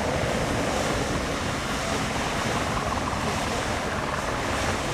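Beehive Geyser erupting: a steady rushing of water and steam jetting from its narrow cone.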